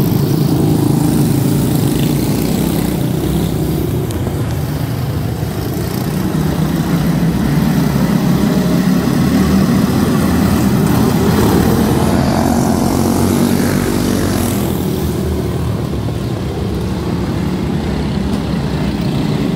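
A pack of Animal-class quarter midget race cars, small single-cylinder Briggs & Stratton Animal engines, running at racing speed together as a loud, dense buzz. It swells as the pack passes close by about halfway through, then eases as the cars move off around the oval.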